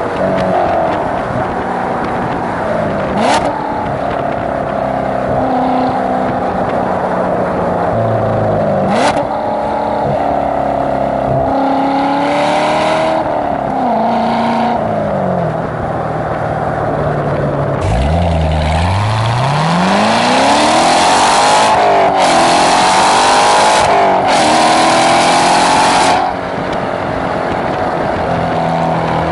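C7 Corvette Stingray Z51's 6.2-litre V8 through its stock exhaust under hard acceleration, the note climbing with the revs and dropping sharply at each upshift, in two runs. Near the end it switches to the same car with an AWE off-road X-pipe, which deletes the secondary catalytic converters, also accelerating hard.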